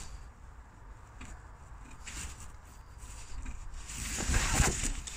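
Rubber heater hoses being worked and pushed onto the heater valve's pipe stubs, an irregular rubbing and scraping that is loudest about four seconds in.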